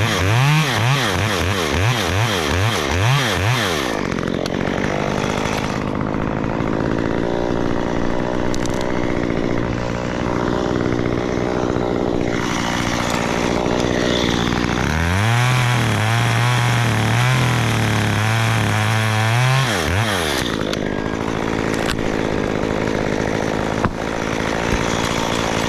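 Chainsaw blipped up and down several times at the start, then running. Midway it is held at high revs for about five seconds, cutting wood, before dropping back.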